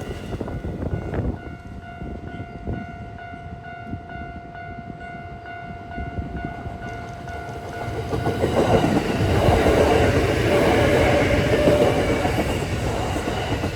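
Level-crossing warning bell ringing in a quick, even repeating rhythm. From about eight seconds a Kintetsu 8000 series electric train, two sets coupled, approaches and passes, its running and wheel noise growing loud and drowning the bell.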